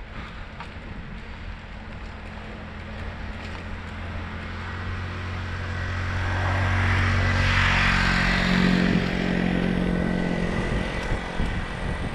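A motor vehicle approaching and passing close by, its engine hum and road noise swelling to a peak about eight seconds in and then fading.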